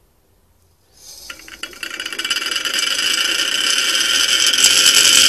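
Magnetic stir bar spinning in a glass Erlenmeyer flask on a stirrer hotplate, clattering against the glass. It starts about a second in, builds over the next couple of seconds and then runs loud and steady.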